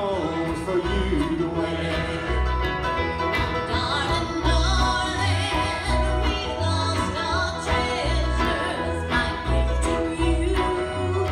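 A live band plays a swing tune with fiddle, acoustic guitars, upright bass and drums, with a steady bass pulse under the melody, recorded from the audience on a phone microphone.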